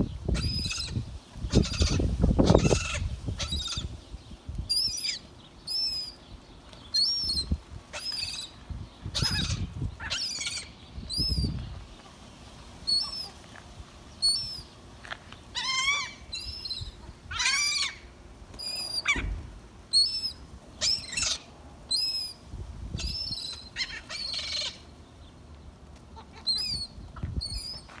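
A flock of gulls being fed, calling: short high calls repeated about once a second, with a few louder, longer calls about halfway through. Low flapping noise in the first few seconds.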